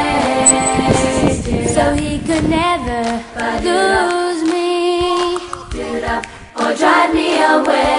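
Background music: an a cappella vocal group singing, voices without instruments, with a brief break in the singing about six and a half seconds in.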